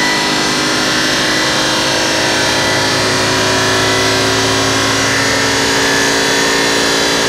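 BMW E39 M5's S62 V8 at full throttle on a chassis dynamometer, held near the top of its rev range at about 6,000 to 6,600 rpm during a power run. Its note is steady and rises slowly.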